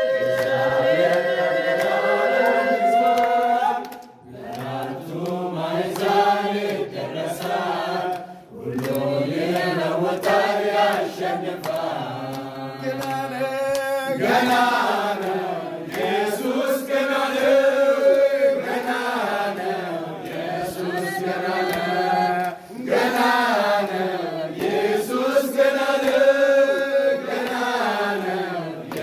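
A group of voices singing a slow gospel hymn together in long, held phrases, with some hand clapping.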